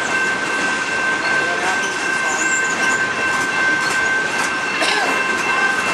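A long freight train of loaded potash covered hopper cars rolling past at close range: a steady rumble and rail noise that does not let up, with a steady high-pitched tone held over it.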